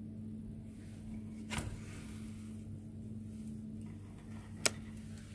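Quiet room tone: a steady low hum, with a soft knock about a second and a half in and a sharp click near the end.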